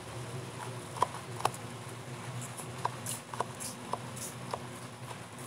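Cloth being wiped over a woven plastic basket: light, scattered clicks and faint rubbing, a few ticks a second as it catches on the weave.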